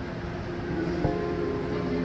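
Background music of held chords, changing about a second in, over a low rumble.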